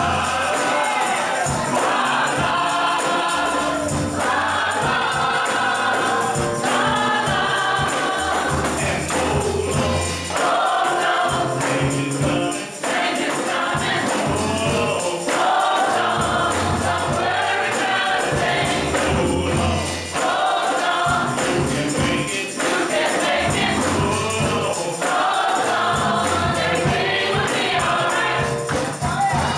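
Gospel choir singing together, with a tambourine shaken along to the beat over a low bass accompaniment.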